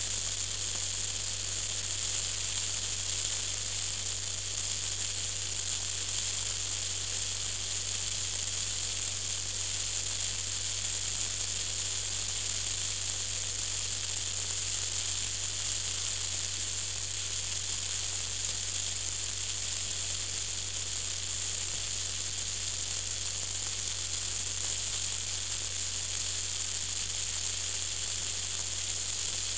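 Steady hiss with an even low drone beneath it, unchanging throughout: wind and road noise of a vehicle cruising at steady speed.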